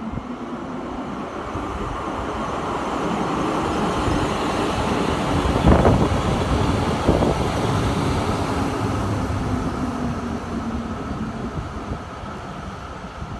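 A Zurich VBZ Tram 2000 articulated tram passing by on its rails, growing steadily louder to its closest point about halfway through and then fading as it moves away. Two sharp clacks from the wheels on the track come as it passes closest.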